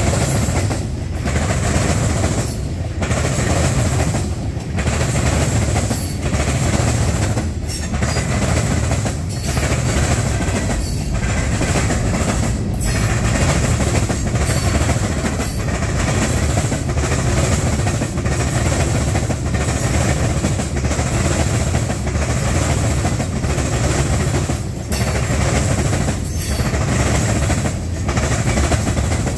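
Freight train cars rolling past close by: a steady rumble and clatter of steel wheels on rail, dipping briefly about every one and a half to two seconds as each car goes by.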